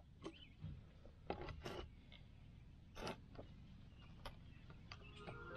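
Light knocks and clicks of bricklaying work: a brick trowel and a level being set against and tapped on the bricks and wet mortar, a few scattered strikes.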